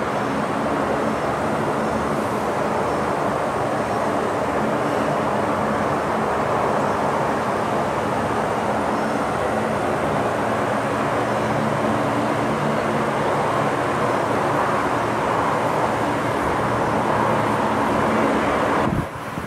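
Military aircraft engines running steadily on the flight line: a constant roar with a low droning hum and a faint high whine, dropping away suddenly near the end.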